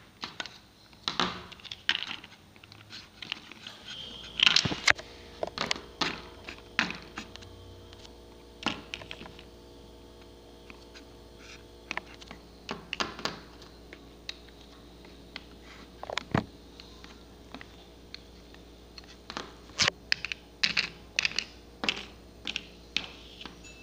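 Small plastic toy figures being handled and set down on a plastic toy house, making irregular light clicks and taps in scattered clusters.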